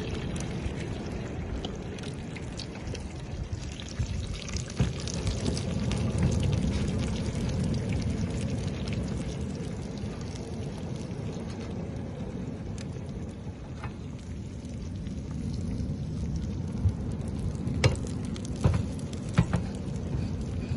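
Steady rushing noise of the seashore, swelling and easing slowly, with a few sharp clicks near the end.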